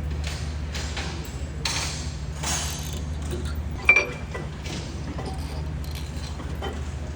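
Metal engine parts and tools being handled, clinking and scraping, with one sharp metallic clink about four seconds in, over a steady low hum.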